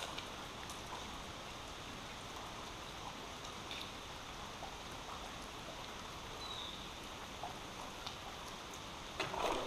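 Steady rain falling on creek water, an even hiss with a few faint ticks, and a short louder noise near the end.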